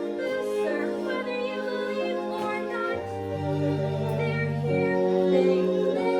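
Musical-theatre accompaniment playing sustained chords that change in steps, with a low bass line coming in about three seconds in.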